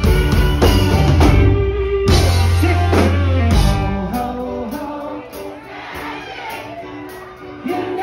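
Live rock band playing loud with singing. Heavy drums and bass drive the first four seconds, then a quieter stretch of held notes follows, and the full band comes back in just before the end.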